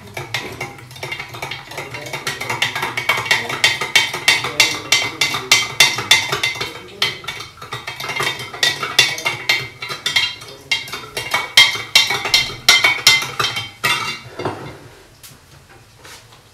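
A spoon stirring a drink in a jug, clinking rapidly against its sides several times a second; the clinking stops a couple of seconds before the end.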